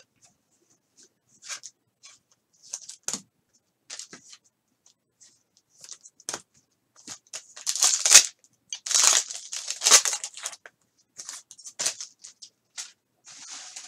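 Foil wrapper of a Contenders football card pack being torn open and crinkled in short bursts, loudest in a dense run through the middle. Lighter rustles and taps of cards being handled come before and after.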